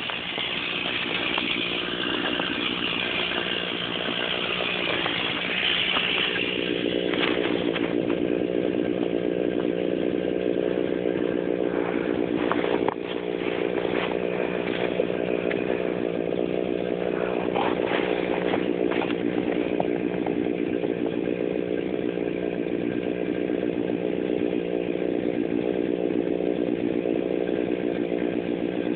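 Stihl chainsaw running at a steady engine note while felling a maple tree, with a harsher cutting sound through the first several seconds. A sharp knock comes about thirteen seconds in, and the saw is a little quieter after it.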